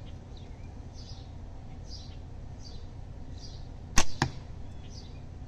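A slingshot shot with Shishu flat bands firing an 11 mm steel ball: a sharp snap of the bands on release about four seconds in, followed a quarter second later by a second, shorter crack as the ball strikes the target. Birds chirp throughout.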